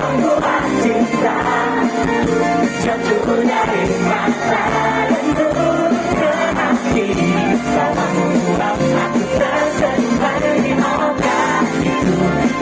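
Live pop band performance with voices singing over the music.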